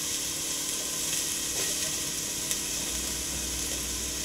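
Diced onion sizzling in hot olive oil in a pot, a steady hiss.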